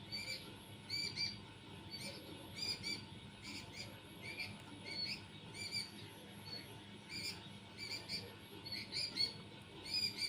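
Small birds chirping: short, sharp calls repeating two or three times a second without a break.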